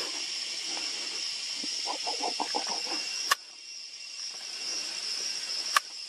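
Forest ambience with a steady high-pitched insect drone. About two seconds in comes a quick run of about seven low notes, like a bird calling. Two sharp clicks follow, one near the middle and one near the end, and the background drops after the first.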